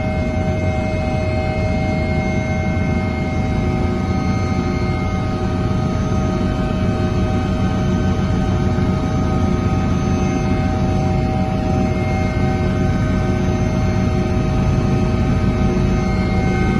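Helicopter engine and rotor noise heard from inside the cabin: a steady low rumble with a constant whine on top.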